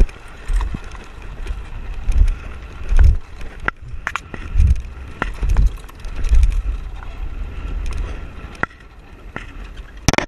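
Land yacht rolling over beach sand, heard from a camera mounted on its frame: low rumbling surges of wind and rolling noise, with scattered sharp clicks and rattles from the frame and rigging and a quick burst of clicks near the end.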